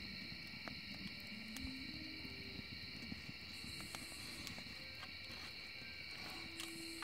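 Wood fire crackling in a fire pit, with scattered small pops, over a steady high trilling of crickets or other insects. A few short, low, held tones sound faintly now and then.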